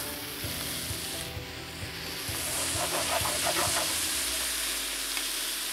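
Shrimp, garlic and olive oil sizzling in a hot frying pan as diced Roma tomatoes are dropped in, the sizzle growing a little louder about two seconds in.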